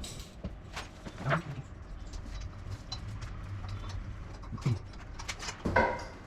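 Irregular light clicks and knocks of metal parts and tools being handled while an engine mount is fitted, with a low steady hum beneath and a few brief voice-like sounds.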